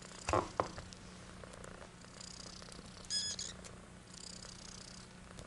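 Cat purring steadily, with two brief soft knocks just after the start and a short high-pitched squeak about three seconds in.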